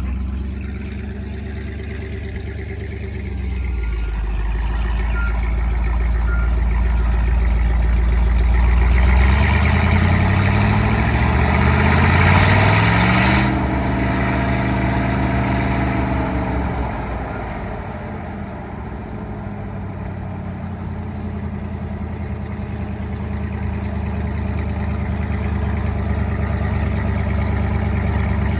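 Farm tractor engine running steadily, then revving up over several seconds with a loud rush of machinery noise. The noise cuts off sharply and the engine falls back to a steady run.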